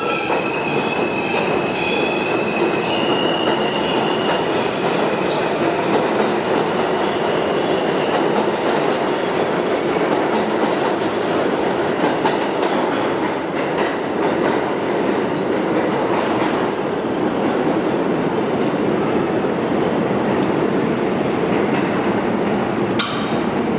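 An R160A subway train (Alstom-equipped) pulls out of the station. Its traction motor whine steps up in pitch over the first few seconds, then the cars pass with a steady rumble and clatter of steel wheels on the rails. A brief sharp high sound comes near the end.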